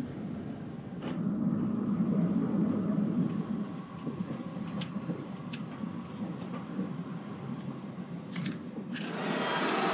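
Road and drive noise heard inside the cabin of a moving Toyota Prius: a steady low rumble that swells about two seconds in, with a few light clicks. Near the end it gives way to a brighter, louder outdoor noise.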